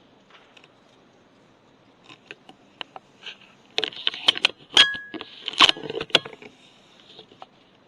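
A burst of clattering and rattling, small hard knocks in quick succession, from about four seconds in for some two and a half seconds, with a short high squeak in the middle.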